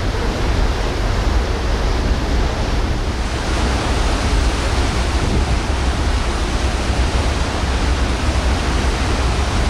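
Wind buffeting the microphone on an open ferry deck, a steady low rumble, over the rushing hiss of the ship's wake churning astern; about three seconds in the hiss grows brighter.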